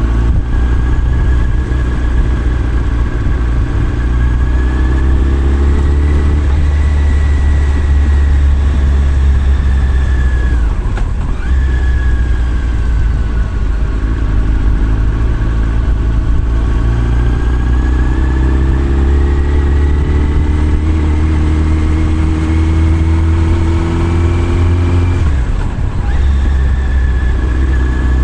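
Motorcycle engine running under way, its note rising and falling with the revs, dipping sharply and briefly about eleven seconds in and again near the end, over a steady low rumble.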